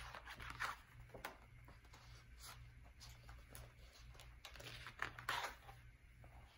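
Faint rustling and sliding of heavy paper pages as a photo book is turned slowly by hand. The loudest rustle comes about five seconds in.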